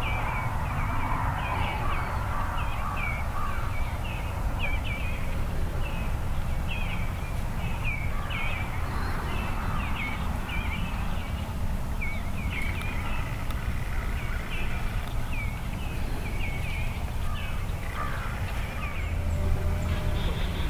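Birds calling: a steady run of short, repeated calls, one to two a second, over a low steady rumble that grows louder near the end.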